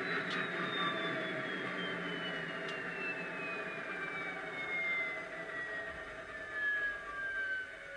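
Class 57 diesel locomotive sound from a modified ESU LokSound decoder, played through a small EM1 speaker in the model: engine running with a turbocharger whine that falls steadily in pitch as the engine winds down. The sound drops in level just before the end.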